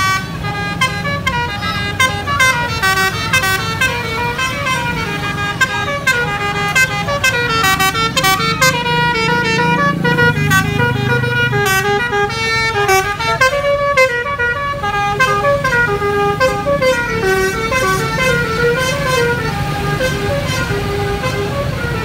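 Telolet multi-tone musical horn on an Arofah Trans coach, playing a quick melody of stepping notes without a break. The bus's engine runs low underneath.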